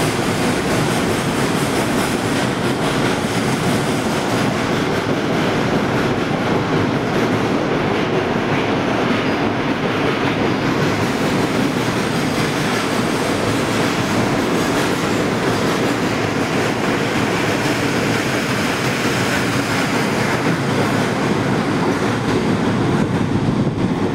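Freight train of open gondola wagons rolling past at speed: a steady, loud rumble and clatter of steel wheels on the rails.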